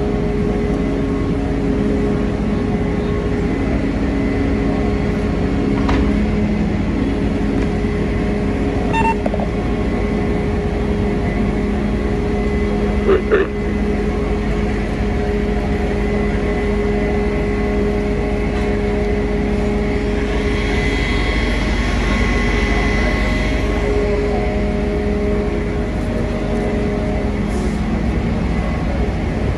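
Fire apparatus diesel engine running steadily with a constant low drone, and a brief knock about 13 seconds in.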